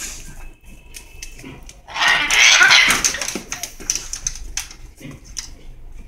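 Amazon parrot giving one harsh, raspy squawk about two seconds in, lasting about a second, with a few small clicks around it.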